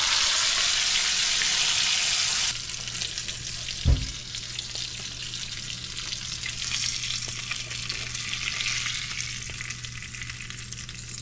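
Hot oil sizzling in a nonstick frying pan. The sizzle is loud at first and drops abruptly to a quieter sizzle about two and a half seconds in. A single thump comes about four seconds in.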